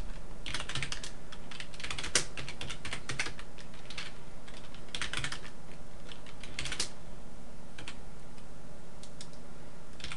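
Typing on a computer keyboard: quick runs of keystrokes in several bursts, then only scattered single key presses in the last few seconds, over a steady low hum.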